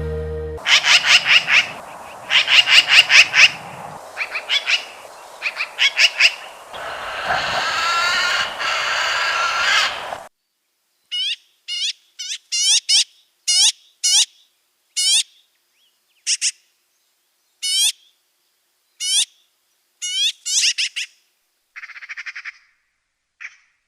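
Magpie calling: fast rattling chatter in repeated bursts for about ten seconds, then, after a sudden change, a series of short, high, separate calls about a second apart, with a few harsher rasping calls near the end.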